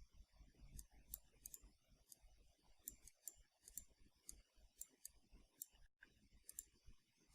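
Faint, irregular clicks of a computer mouse, about two or three a second.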